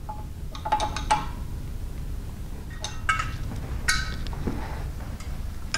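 Steel hand tools clinking against the steel of a belt grinder as bolts are snugged and parts handled. There are a few short, ringing metallic clinks, in clusters about a second, three seconds and four seconds in.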